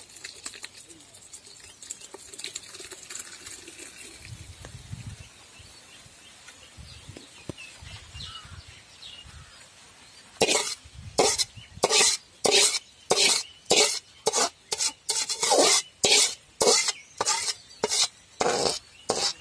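A steel spoon scraping and knocking against the inside of a metal pan, about two sharp metallic scrapes a second, pushing the last of a lemon rasam tempering out onto rice. The scraping starts about ten seconds in; before that there is only faint sound while the tempering is poured.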